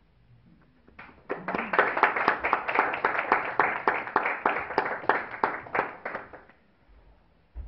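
Audience applauding, starting about a second in and dying away after about five seconds. A brief low thump comes right at the end.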